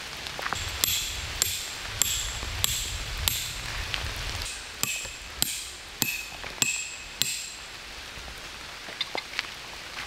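Metal tent stakes being hammered into the ground: about a dozen ringing metallic strikes, a little under two a second, stopping about seven seconds in. Steady rain patters throughout.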